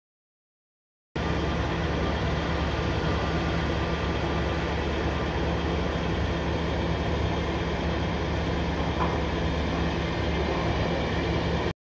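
Passenger train of Intercity coaches rolling past at a station: a steady rumble of wheels on rail with a low hum underneath. It starts abruptly about a second in and cuts off suddenly just before the end.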